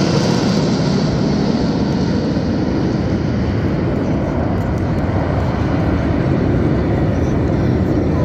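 Formation of T-50B jet aircraft flying past overhead: a loud, steady jet roar. A higher hiss fades over the first couple of seconds.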